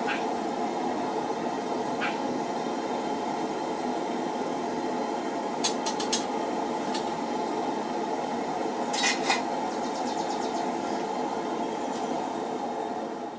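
A steady rushing noise with a few light metallic clinks and taps over it: one about two seconds in, several around six seconds and a quick cluster near nine seconds.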